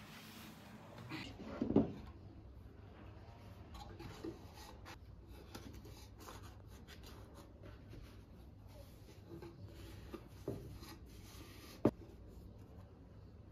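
Faint rubbing and handling of objects, with a few soft knocks and one sharp click near the end.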